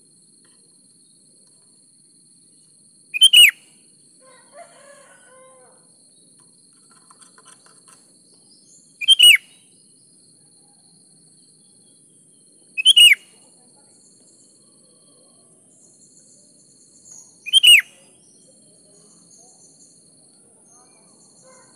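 Sooty-headed bulbul calling: four short, loud calls a few seconds apart, each a quick note sliding downward.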